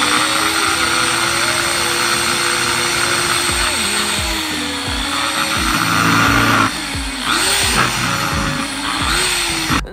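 Electric drill in a drill stand boring through a blue PVC valve body: the motor runs loud and steady, its pitch dipping a few times in the second half as it cuts, then stops at the end.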